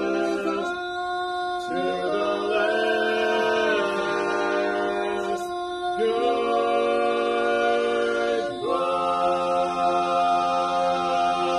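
Male barbershop quartet singing a cappella, holding long four-part chords that shift every couple of seconds. The last, the song's closing chord, starts about three seconds before the end and is held through it.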